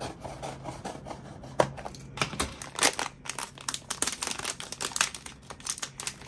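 Blind-box toy packaging being handled and torn open: crinkling plastic and cardboard with irregular sharp crackles, which come much thicker from about two seconds in.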